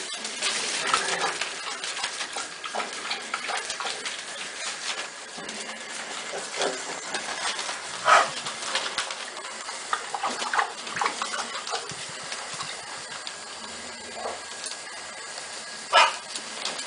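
American Staffordshire terrier puppies whimpering and giving short yelps, the loudest about eight seconds in and again near the end, over the steady crinkle of newspaper bedding under their paws as they scramble.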